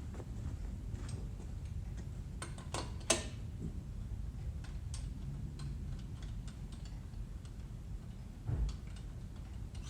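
Scattered light metallic clicks and taps of hand tools and parts while dowel pins are worked out of a Mazda 13B rotary engine's housings, the sharpest click about three seconds in and a dull knock near the end, over a low steady hum.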